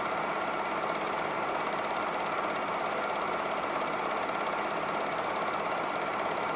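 Super 8 film projector running, its film-advance mechanism making a steady, rapid clatter.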